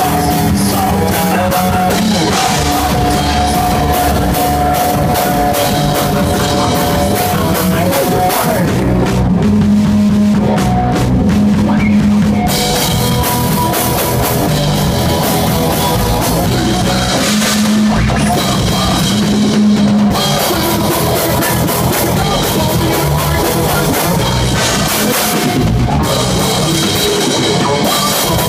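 Rock band playing a song live: guitars over a full drum kit, loud and steady.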